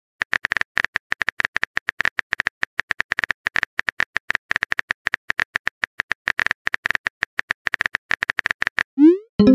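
Texting-app keyboard typing sound: rapid, irregular clicks, each with a short high tone, as a message is typed out letter by letter. About nine seconds in, a short rising swoosh as the message is sent.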